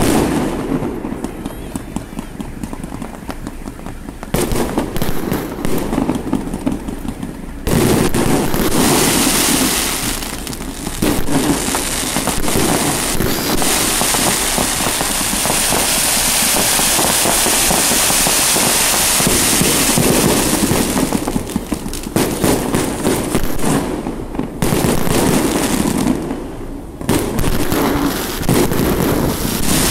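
Fireworks salute going off: rapid bangs and crackling that thicken into a near-continuous barrage for most of the middle, then thin out briefly near the end.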